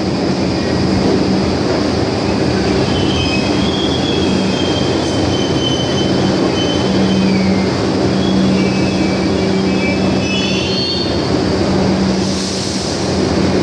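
R62 subway train rolling slowly into a terminal platform: a steady rumble and hum, with wavering high-pitched wheel squeals from about three to eleven seconds in. A short hiss comes near the end.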